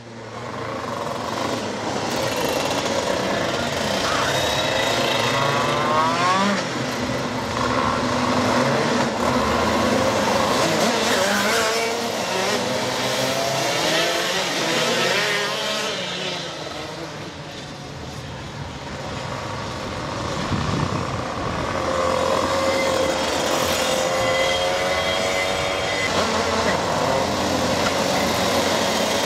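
Competition car engines revving hard, the engine note climbing in pitch again and again as the cars accelerate through the gears, with a lull a little past the halfway point.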